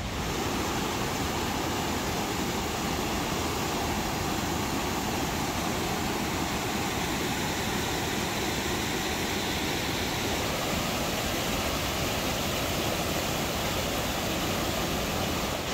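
Steady rushing of water from Jackson Falls, the cascades of Wildcat Brook, with no pitch or rhythm to it.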